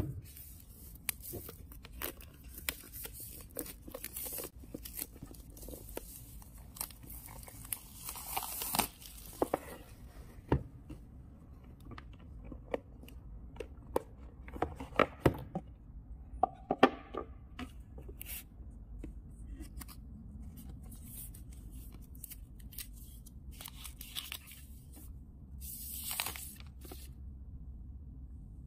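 Tearing and crinkling of packaging as a smartphone's cardboard retail box is unsealed and opened, with scattered taps and clicks of the box and its lid being handled. The tearing and rustling is busiest in the first ten seconds, with a last burst of rustling near the end.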